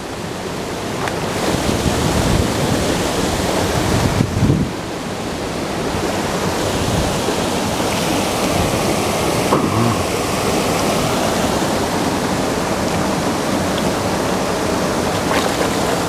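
Steady rush of water from a creek waterfall, an even hiss-like roar, with a few low bumps on the microphone about four seconds in.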